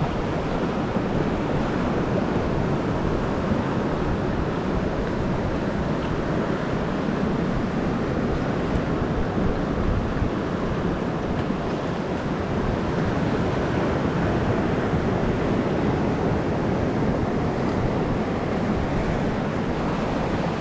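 Steady rushing noise of sea surf, mixed with wind on the microphone.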